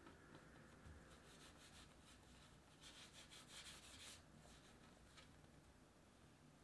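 Faint rubbing of palms and fingers rolling a small piece of bread dough against a smooth work surface, a quick run of strokes about three seconds in and one more brush a little later.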